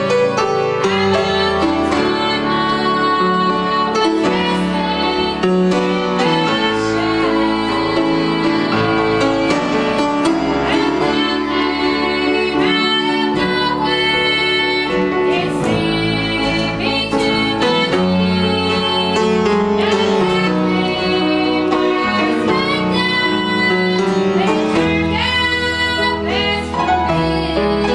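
Southern gospel song performed live by a church band led by a grand piano, with a woman singing lead into a microphone.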